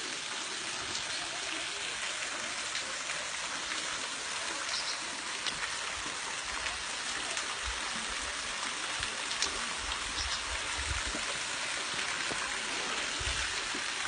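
Waterfall pouring into a rock pool: a steady rush of falling water. A few dull low bumps come through around the middle.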